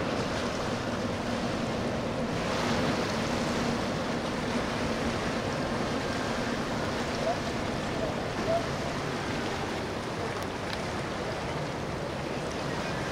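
Steady rushing wash of river water along the hull of a Lazzara motor yacht cruising slowly past, swelling a little about three seconds in.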